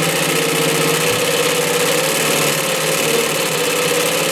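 Vintage Singer 112W115 belt-driven, double-needle, needle-feed industrial sewing machine running steadily, stitching two layers of fleece, with a constant motor hum under the stitching.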